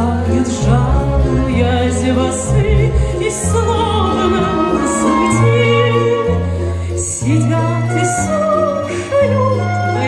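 A woman singing with vibrato into a microphone over an instrumental backing track, with a bass line moving from note to note and light high percussion ticks.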